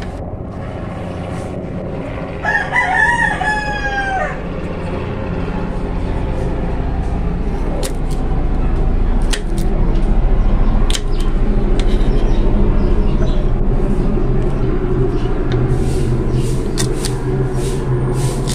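A rooster crows once a couple of seconds in, a falling call of about two seconds. A knife taps sharply on a plastic cutting board as green beans are sliced, over a low engine-like drone that swells through the middle and end.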